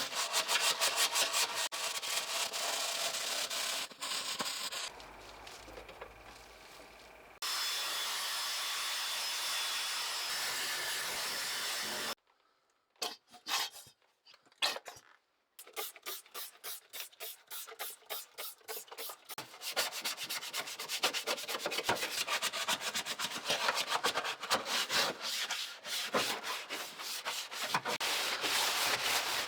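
Hand sanding with rapid back-and-forth abrasive strokes, in several stretches: a steady unbroken rasp a quarter of the way in, a few separate strokes with short silences around halfway, then quick even strokes again to the end.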